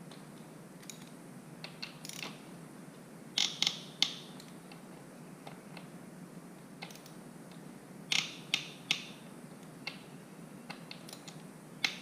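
Ratchet wrench clicking in short runs, with sharp groups of clicks about three and a half seconds in and again around eight to nine seconds, as the motorcycle's front-wheel bolts are tightened in turn.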